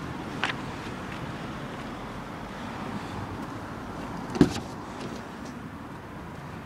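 Driver's door of a BMW 116d three-door hatchback being opened: one loud clunk of the latch about four seconds in, with a lighter click near the start, over steady outdoor wind noise.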